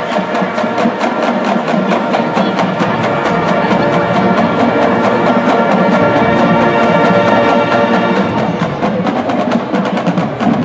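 Marching band playing: a drumline keeps a fast, steady beat under sustained brass and wind chords.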